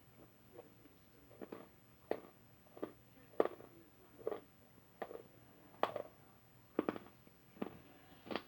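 Crunchy chewing of hard, crisp food: about ten sharp crunches, roughly one a second, in a quiet small room.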